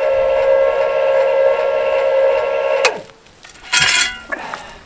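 Lippert electric tongue jack's motor running as it raises the trailer tongue: a steady high whine that holds for about three seconds, then stops sharply. About a second later comes a brief metallic clank as a steel jack stand is moved.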